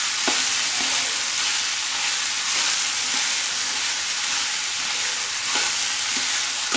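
Boiled sweet corn kernels sizzling in hot oil in a metal wok as a metal spatula stirs and turns them. The sizzling is steady, with a few sharp scrapes and knocks of the spatula against the pan.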